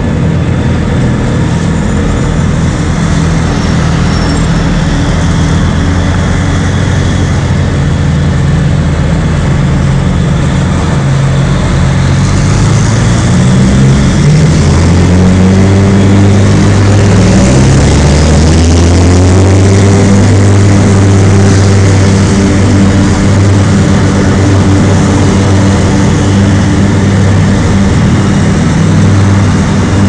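Heavy diesel engines of snow-clearing trucks with front ploughs and a towed Øveraasen sweeper unit, running loud and close. About halfway through, an engine note climbs steadily and then holds at the higher pitch.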